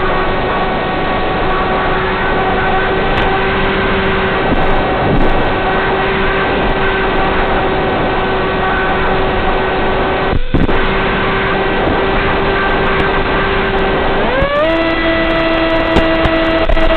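Electric motor and propeller of a Z-84 flying wing running steadily in flight under a constant rush of wind noise. The motor's hum glides up to a higher pitch about 14 seconds in, holds there, and drops back near the end.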